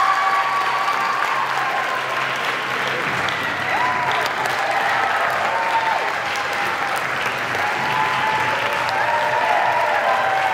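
Theatre audience applauding steadily during a curtain call, with voices calling out over the clapping.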